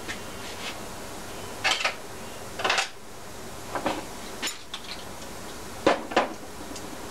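Metal hand tools and small engine parts clinking and clattering on a steel workbench, in about half a dozen short, separate knocks spread over several seconds.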